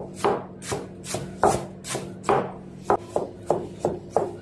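Kitchen knife chopping on a cutting board, sharp strokes about three a second at an uneven pace.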